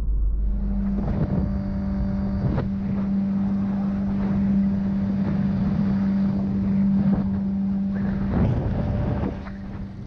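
Mercury 60/40 outboard jet running at a steady high throttle, pushing a flat-bottom aluminum jon boat at about 26 mph, with wind on the microphone. Near the end the engine note drops away as the throttle comes off and the boat slows.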